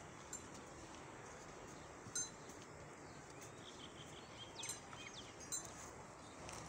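Small bells on the necks of decorated bulls tinkling in a few brief, high rings, over a faint steady background hiss.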